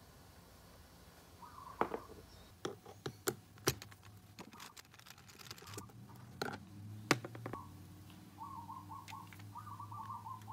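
Sharp plastic and metal clicks and knocks from handling a Honda Elite 50 scooter's plastic battery cover and putting a screwdriver to the battery terminal bolts, bunched in the first half. In the last few seconds a bird chirps in short repeated calls.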